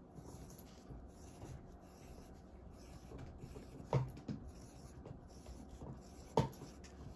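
Graphite pencil scratching on drawing paper as small circles are drawn. Twice, about four and six seconds in, a short sharp crunch: a dog chewing on a bone.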